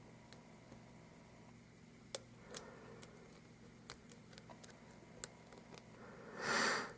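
Faint, scattered metallic clicks and ticks of a lock pick and tension wrench working the pin stack of an Abus 83/45 padlock during single-pin picking. Near the end comes a louder breath through the nose, about half a second long.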